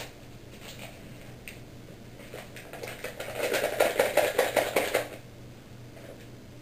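Paper pudding-mix pouch crinkling and rustling as instant pudding powder is shaken out of it into a bowl of milk, a run of fast crackles lasting about three seconds in the middle.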